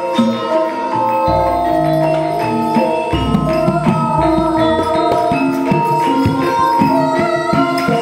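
Javanese gamelan ensemble playing a piece in pelog barang tuning: bronze keyed and kettle-gong instruments ring in interlocking patterns. Deep strokes come in about a second in and again about three seconds in.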